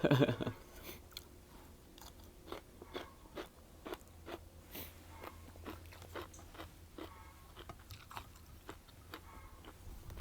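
A person chewing food with their mouth close to the microphone, with many irregular crisp crunches.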